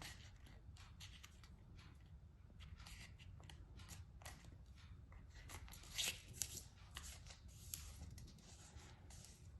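A sheet of A4 paper being folded and creased by hand: faint, scattered rustling and crinkling, a little louder about six seconds in.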